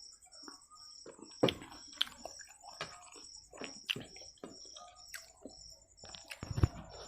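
Close-up eating sounds: chewing and biting mouthfuls of egg chow mein noodles, with scattered soft clicks and two louder knocks, one about a second and a half in and one near the end.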